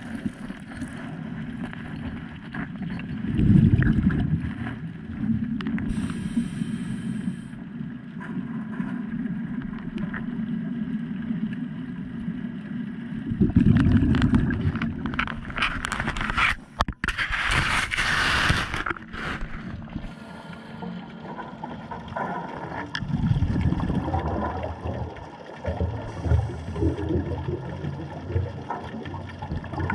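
Underwater sound around a scuba diver: low gurgling rushes of exhaled bubbles, loudest about four and fourteen seconds in and again in the last few seconds, with a high hiss of breathing through the regulator around eighteen seconds in.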